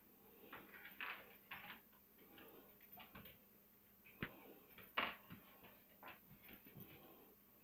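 Faint, irregular light knocks and clicks on a hardwood floor, with two sharper knocks about four and five seconds in, as a small dog and a chinchilla in a plastic exercise ball move about.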